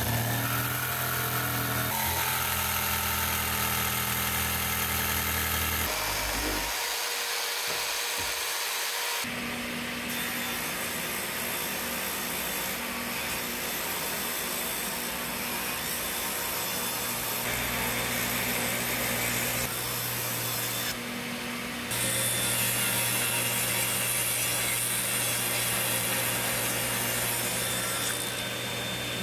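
A power tool working wood, running continuously with a steady machine hum under the noise of the cut or sanding; its tone shifts abruptly a few times.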